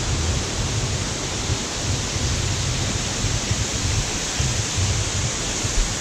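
Waterfall's falling water rushing in a steady, dense noise, with an uneven low rumble beneath it.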